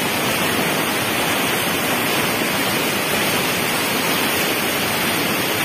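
Canal water pouring through open sluice gates and rushing down a steep, foaming chute, a steady, even rushing noise.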